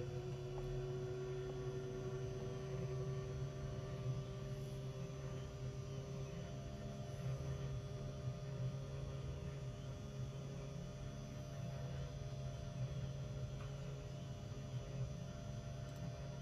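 CNC 3018 Pro desktop router running with a steady motor hum, one tone creeping slightly up in pitch.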